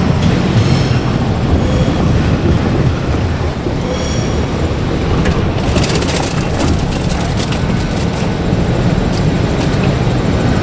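JR Kyushu 817 series electric train running past, a steady loud rumble of wheels on rails, with a cluster of sharp clicks about six seconds in.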